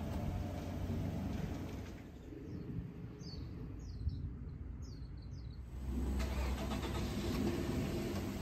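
Low, steady rumble of road traffic, with a few short high bird chirps in a quieter stretch in the middle.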